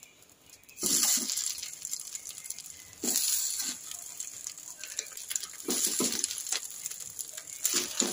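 Hot oil sizzling in a nonstick frying pan as pieces of steamed semolina-and-yogurt cake are laid in one by one. Four sudden bursts of sizzling, one as each piece lands, each settling to a softer hiss.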